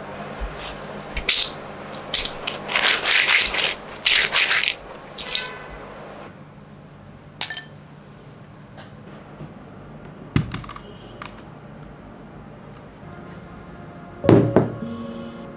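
Loose plastic keycaps from a mechanical keyboard rattling and clattering against one another in several bursts over the first half. After that come scattered single clicks and clacks, one louder clack near the end.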